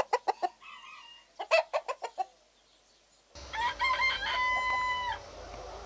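Chicken clucking in two quick runs of short calls, then a rooster crowing once, a long held call lasting about a second and a half, over a steady low outdoor background rumble that starts about three seconds in.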